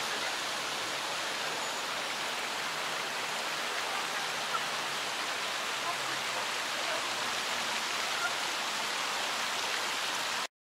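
A steady, even rushing hiss that cuts off suddenly into silence near the end.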